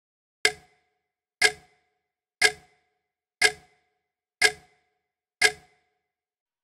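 Clock ticking: six sharp ticks, one a second, each dying away quickly.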